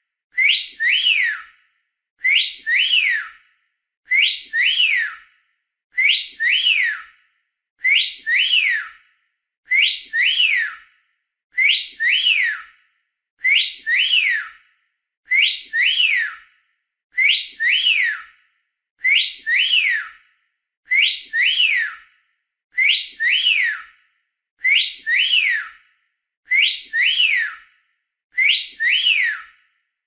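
A person whistling the same short two-part whistle over and over, about every two seconds: a rise in pitch, then a higher rise that sweeps down, with silence between each whistle.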